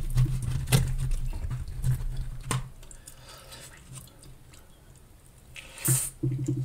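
Close-miked wet chewing of sauce-covered loaded fries, with a couple of sharp clicks as the plastic fork digs into the cardboard box in the first few seconds. It goes quieter, then there is a short loud puff of breath near the end.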